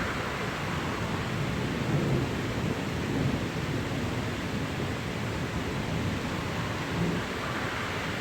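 Heavy rain falling steadily in a thunderstorm, with thunder rumbling low underneath.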